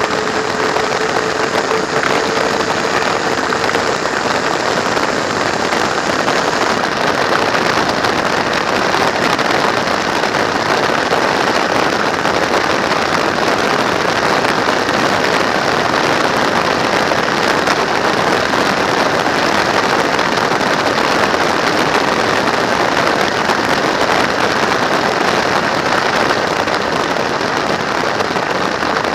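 Steady rush of wind noise over the camera microphone on a trike cruising at highway speed, with road and engine noise blended into it. A faint steady tone sits under it for the first few seconds.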